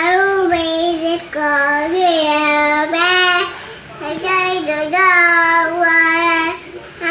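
A toddler singing into a microphone, holding drawn-out notes of about a second each with short breaks between them.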